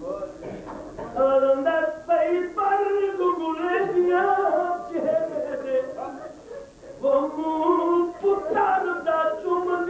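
A man chanting a majlis mourning recitation in a melodic, sung style, holding long wavering notes, in two phrases with a brief lull around six seconds in.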